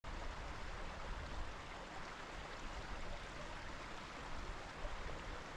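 Steady rushing of a mountain stream, with a low rumble of wind on the microphone.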